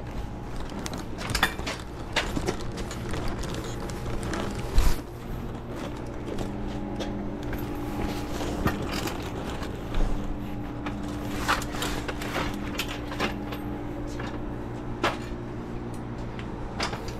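A hand truck loaded with cases of bottled drinks is maneuvered through a cramped storeroom, its metal frame and the cases knocking and rattling, with one heavier thump about five seconds in. A low steady hum sits underneath.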